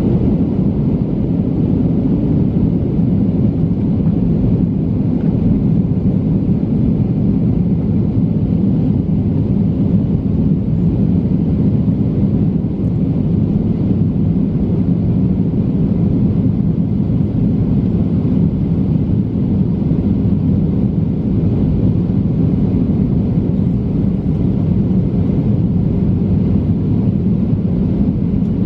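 Cabin noise of a Boeing 737-900 in flight, heard inside the cabin beside the wing: its CFM56-7B turbofan and the airflow make a steady, low-pitched rush.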